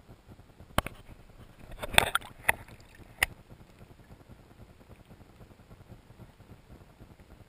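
Water splashing and knocking against a camera as it comes up out of the river beside a kayak: a handful of sharp knocks over the first few seconds, the loudest in a short splashy burst about two seconds in. After that only a faint steady hiss.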